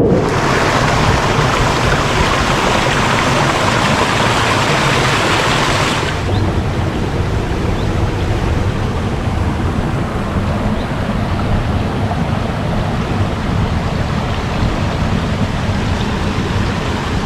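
A mountain stream's water flowing steadily over rocks. About six seconds in it changes abruptly to a softer, duller flow.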